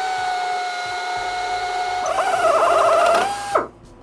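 Power drill spinning a step drill bit into a metal bracket: a steady whine that grows louder and wavers about two seconds in as the bit bites into the metal, then stops abruptly near the end.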